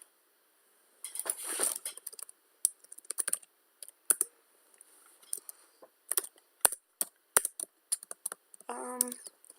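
Typing on a computer keyboard: irregular keystroke clicks, some in quick runs and some single.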